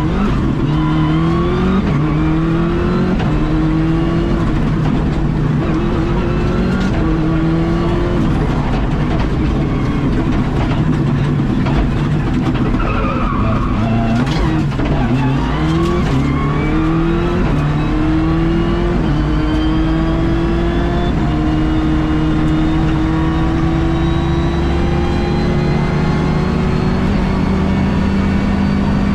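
In-car sound of a rally car's engine at full throttle on a tarmac stage. It revs up through a quick run of gear changes, then drops and downshifts as the car slows about halfway through. It pulls back up through the gears and finishes on a long climb in a high gear.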